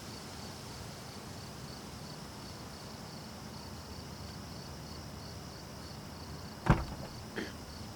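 Crickets chirping in an even, pulsing rhythm over faint background noise, with a sharp thump near the end followed by a lighter knock.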